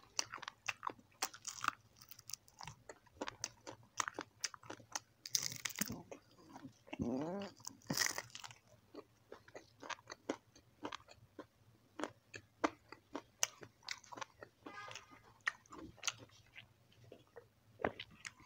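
Close-miked chewing of crispy fried chicken feet: many sharp, irregular crunches and crackles of the fried skin and small bones between the teeth, with wet mouth sounds.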